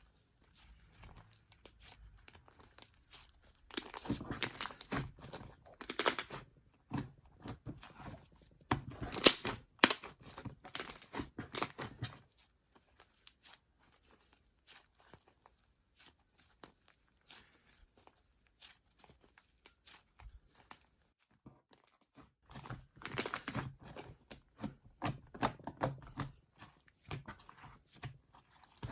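Slime mixed with shaving foam being stretched and pulled apart by hand, giving dense crackling, popping and tearing sounds in bursts, with quieter pauses between.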